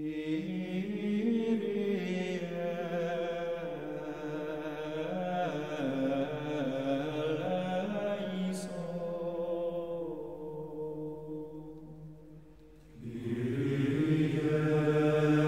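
Slow choral chant: several voices holding long notes together. It fades out about twelve seconds in, and a new held chord of voices comes in a second later.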